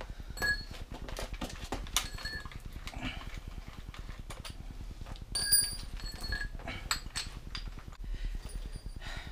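Irregular metallic clicks, taps and clinks with short ringing, from working the chuck of a drill to fit a masonry bit.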